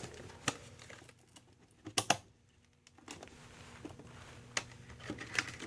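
Sharp plastic clicks of RAM sticks being pressed into motherboard memory slots, the retention clips snapping shut: the sign that each module is fully seated. A handful of separate clicks, the loudest a quick pair about two seconds in.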